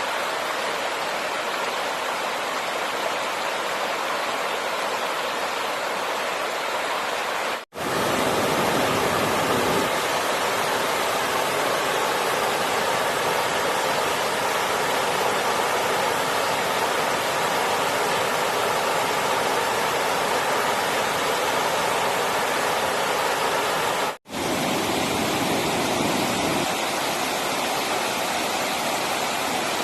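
Steady rushing of running water, a dense even hiss. It breaks off to silence for an instant twice, about 8 and 24 seconds in, and comes back slightly changed each time, as at joins between takes.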